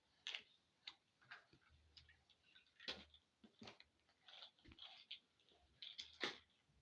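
Faint, irregular clicks and taps of small plastic toy pieces being handled and set down.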